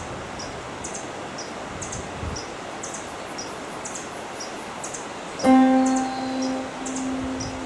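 Piano music comes in about two-thirds of the way through with a held note and its overtones. Before it there is a steady hiss with a short high chirp repeating about twice a second, which carries on under the piano.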